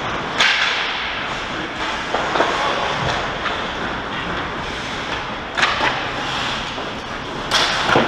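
Ice hockey play on a rink: a steady hiss of skates on the ice, broken by a few sharp hits or scrapes about half a second in, near six seconds and near the end.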